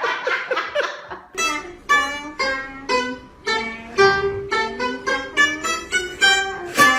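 Music: a plucked string instrument picking a melody of separate notes, about two to three a second, each note fading before the next.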